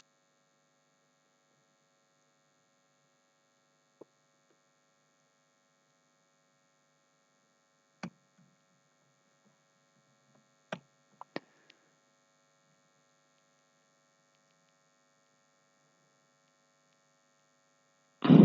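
Faint, steady electrical hum with a few isolated sharp clicks from a computer mouse or keyboard, two of them close together about eleven seconds in. A brief louder sound comes right at the end.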